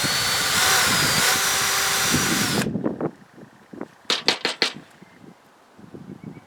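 Power drill running a 5/16 in bit inside a golf driver's hosel for about two and a half seconds, boring out the broken graphite shaft stub, its motor whine shifting in pitch as it cuts, then stopping. About a second and a half later comes a quick run of four or five sharp clicks.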